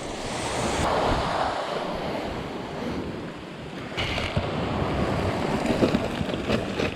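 Surf washing onto the beach, swelling and easing, with wind buffeting the microphone.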